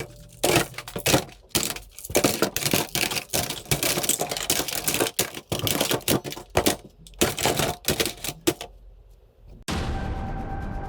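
Toy airsoft pistols firing in rapid, irregular snapping clicks, several shots overlapping like typewriter keys. Near the end the clicking stops and music starts.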